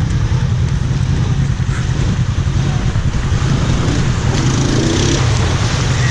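ATV engine running steadily, a low even drone.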